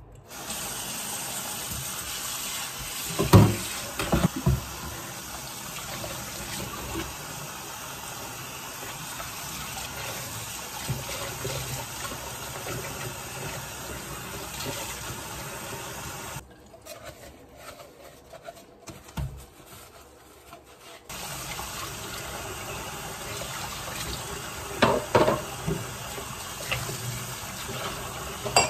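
Kitchen tap running into a stainless steel sink during hand dish-washing, with clattering knocks of dishes a few seconds in and again near the end. The water stops for about four seconds in the middle, then runs again.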